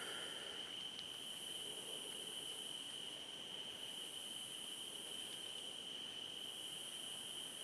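Night insect chorus: a steady high-pitched cricket trill, with a fainter, higher hiss that swells and fades every few seconds.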